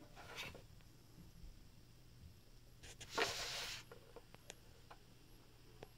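Near-quiet mechanical handling: faint clicks from a Chandler 406RB-1 sewing machine's rotary hook and bobbin-case mechanism as it is turned slowly by hand, with a brief soft hiss about three seconds in.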